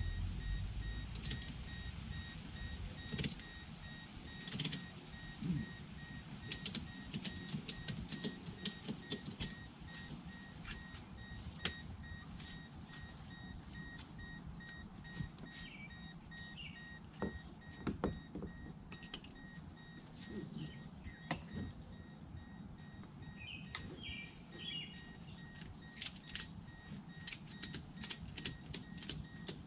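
Tie-down straps being run over a kayak on a car roof and cinched tight: scattered clicks and clatters of the strap buckles, with quick runs of clicking about a quarter of the way in and again near the end. A faint, high, evenly pulsed beep sounds under the first third.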